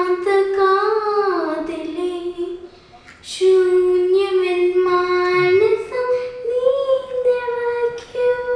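A young girl singing solo with long held notes and no accompaniment heard. She breaks off briefly about three seconds in, then sings again, and the pitch steps up partway through and holds.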